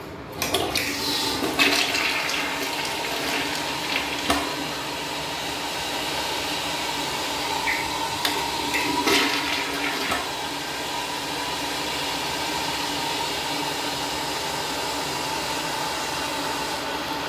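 Toilet flushing: a loud rush of water starts about half a second in and swirls down the bowl, then the tank and bowl refill with a steady hiss.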